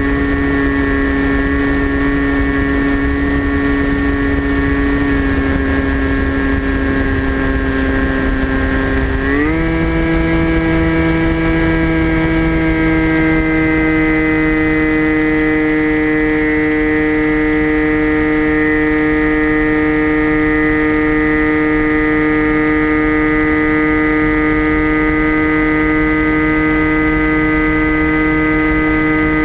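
Electric motor and propeller of a TBS Caipirinha FPV flying wing, heard from its onboard camera as a steady buzzing whine. About nine seconds in the throttle is pushed up: the pitch rises quickly, then holds at the higher note as the wing climbs, over a low rush of airflow.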